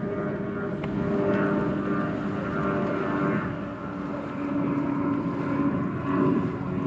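A steady engine drone with a few held low tones over a continuous rushing noise.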